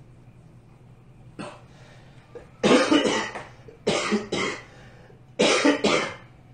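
A man coughing hard several times: a faint cough, then three loud bouts of two or three coughs each, about a second and a half apart.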